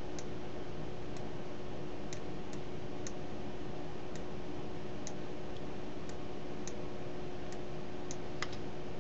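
Scattered single computer mouse clicks, about ten in nine seconds, over a steady hiss and a faint steady hum.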